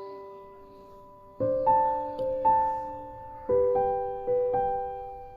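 Soft background piano music, a few sustained chords struck about once a second that ring and fade.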